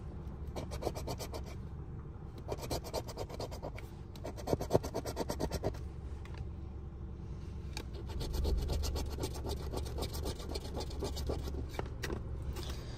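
A coin scratching the coating off a lottery scratch-off ticket in quick rapid strokes, in several bursts with short pauses between them. A steady low rumble sits underneath.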